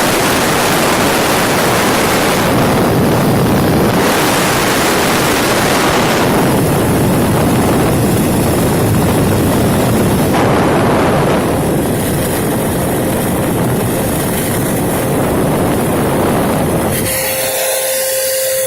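Shop vac running, a loud steady rush of air, its hiss shifting a few times as it is worked to clear flush water out of the air-conditioning lines. Near the end the rush falls away, leaving a steady whine.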